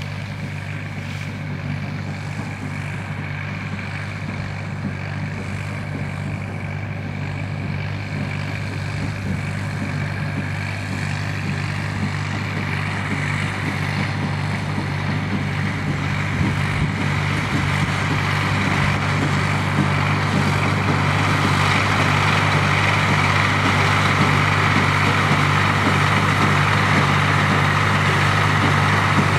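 Square baler running with its engine: a steady low drone that gets gradually louder, with more mechanical noise in the upper range toward the end.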